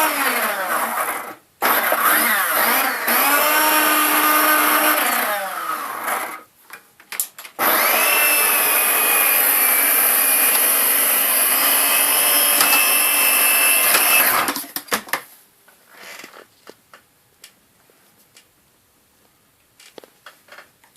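Failing vacuum cleaner motor running with a wavering, whining pitch, sagging and cutting out, then starting up again twice. About two-thirds of the way in it stops abruptly as the fuse blows from the motor fault, and only a few faint clicks follow.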